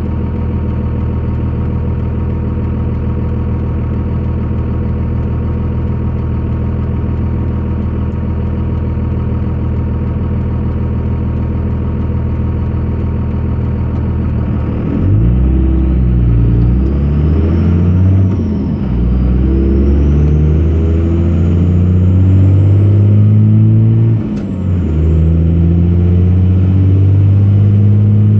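Cummins 24-valve 5.9-litre inline-six diesel heard from inside the cab, running steadily under load, then about halfway through revving up and dropping back three times as it is accelerated hard through the gears, with a high whine climbing along. The owner is listening for a knocking or thumping from the engine that comes only under load and goes away with the clutch in or off the pedal.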